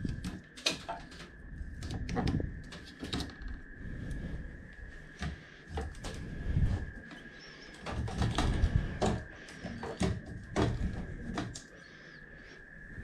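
Rubber spline seal being pulled by hand out of the channel of a fly screen frame: irregular clicks, scrapes and rustles as it comes away and the frame is handled, with a few low knocks. A steady high-pitched tone runs underneath.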